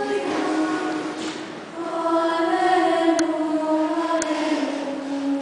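Choir singing a communion hymn in held, sustained notes, pausing briefly about a third of the way in before the next phrase begins.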